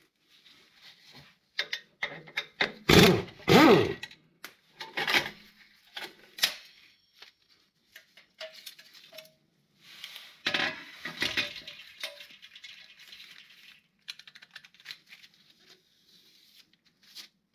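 A power ratchet whirring in two short bursts about three seconds in as it runs out the clutch pressure plate bolts. Scattered metal clinks and rattles follow as the pressure plate and clutch disc come off the flywheel and are handled.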